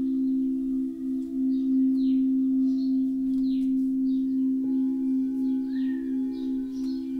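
Crystal singing bowls sounding several steady low tones together that waver and beat against each other, with another bowl tone joining about four and a half seconds in. Short, high, falling chirps repeat over the top.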